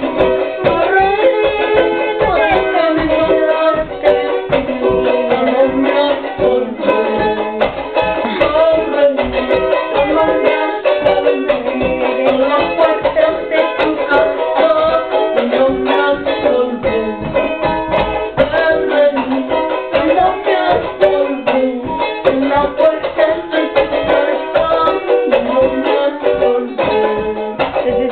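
Charango, the small Andean ten-string lute, played with fast, continuous strumming on a Quechua tune.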